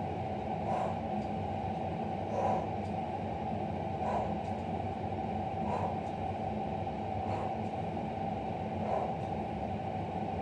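A person doing repeated wood chop reps with a hand weight: a soft puff of sound about every second and a half over a steady low hum.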